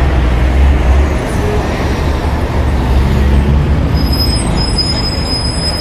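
City street traffic: a steady rumble of passing cars, motorbikes and auto-rickshaws.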